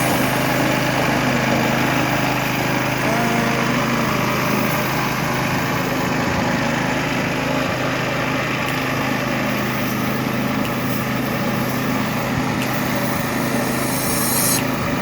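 A small motor running steadily, an even machine whir with no breaks.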